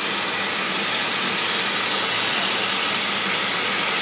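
Kitchen faucet running steadily into a pot of white basmati rice in a stainless steel sink while the rice is rinsed by hand.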